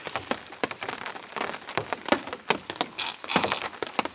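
Heavy rain falling, with many irregular close drop taps.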